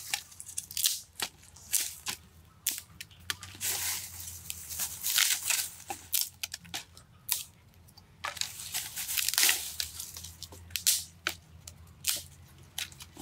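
Dry sticks being snapped and broken by hand, a run of sharp, irregular cracks and crunches with the crackle of dry wood and leaves being handled.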